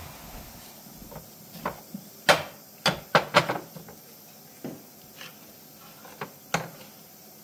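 About a dozen sharp, irregular knocks and clicks of objects being handled and set down, the loudest about two seconds in and a quick run of them around three seconds in.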